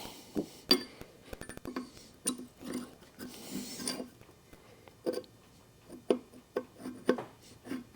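Scattered light metallic clinks, taps and a short scrape as small engine parts and tools are handled on a workbench while a valve is taken out of a 302 V8 cylinder head.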